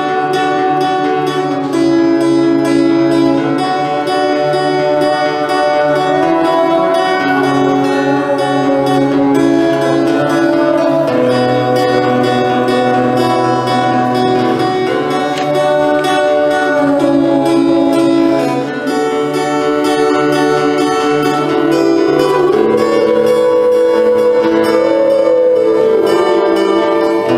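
Guitar strummed and picked in a steady pop-song accompaniment, with the chords changing every second or two.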